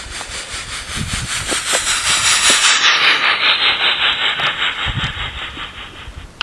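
Spirit box radio static: a loud hiss chopped by a fast, even pulse as it sweeps. It swells toward the middle, loses its highest part about halfway through, and stops shortly before the end.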